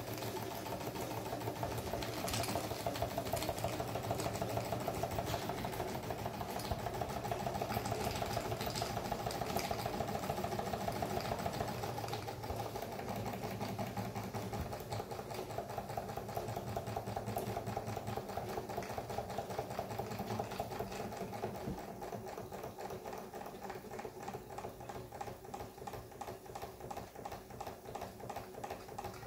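Doll vertical toy steam engine running at speed, a rapid, even mechanical beat. In the last several seconds it gets quieter and its beat becomes more distinct.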